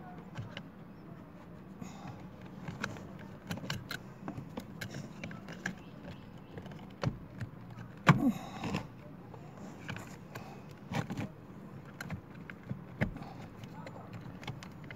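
Scattered small metallic clicks, clinks and scrapes of battery terminal clamps being fitted by hand onto a car battery's posts, with a louder knock about eight seconds in.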